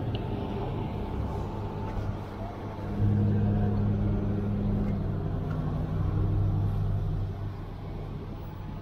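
City street traffic heard from a moving e-bike: a motor vehicle's low engine hum grows louder about three seconds in, holds for a few seconds, then fades back into the general road noise.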